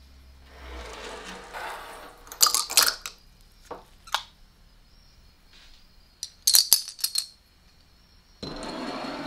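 Old Liberty Head nickels clinking: a soft scrape as they are gathered off a wooden bench, then two clusters of sharp metallic clinks with a ringing note as they go into a swing-top glass jar of tarnish-removing solution. A short rushing hiss near the end.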